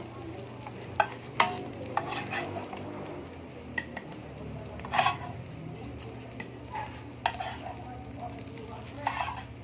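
Sardine omelet frying in a pan, with a utensil knocking and scraping against the pan several times over a steady low hum.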